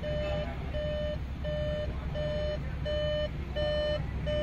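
Car parking-sensor warning beeping: short beeps at one steady mid pitch, evenly spaced, about seven in four seconds, over a low steady hum. The beeping signals an obstacle detected behind the car in reverse.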